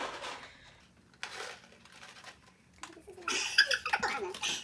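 Two young women laughing: soft breathy giggles, then a louder burst of laughter about three seconds in.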